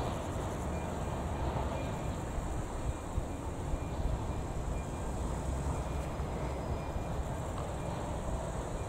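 Level crossing's AŽD ZV02 electronic warning bell ringing in a repeating pattern, over a steady low rumble.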